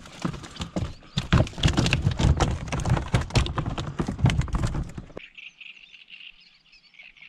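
Fish thrashing and splashing in the water, a dense run of quick irregular slaps. About five seconds in it cuts off abruptly to a faint steady hiss.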